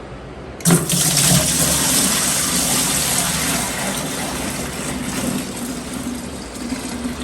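Water gushing from a pipe into a washing machine's tub, starting suddenly about a second in and running on steadily, easing a little toward the end.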